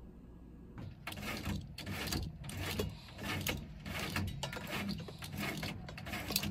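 Roller blind being raised by its pull cord, in a run of short scraping pulls about two a second.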